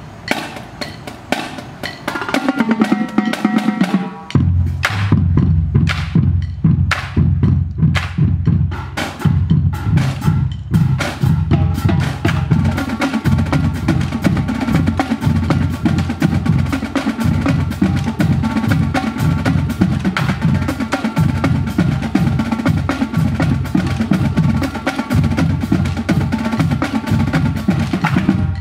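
Marching band drumline playing a steady marching beat: snare drum strikes and rolls over a pattern of bass drums, which come in strongly about four seconds in.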